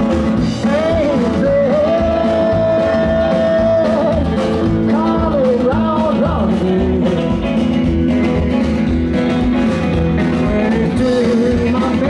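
Live rock-and-roll band playing with guitar and a steady beat, over which a lead line holds one long note and then bends between notes.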